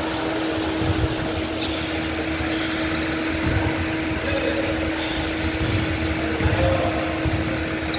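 Steady hum and whoosh of the gym's fans or ventilation, with a few scattered thuds and squeaks from players' shoes and the basketball on the wooden court, about a second in, midway and near the end.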